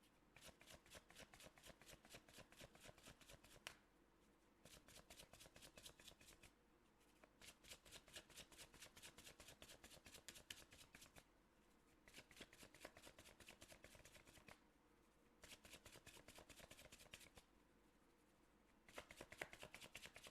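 A tarot deck being shuffled by hand: faint, rapid flicking of cards in about six bouts of a few seconds each, with short pauses between.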